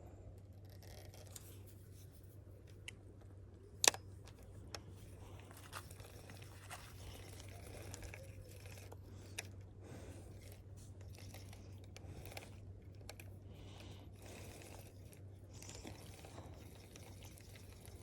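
Close rustling and scattered small clicks of something being handled near the microphone, with one sharp click about four seconds in, over a faint steady low hum.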